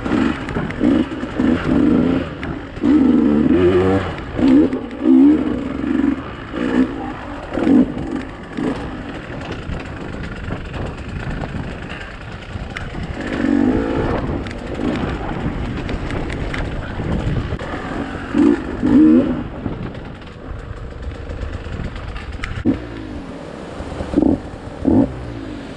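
Dirt bike engine on single-track trail, the throttle blipped on and off in short bursts with quieter stretches of low running between.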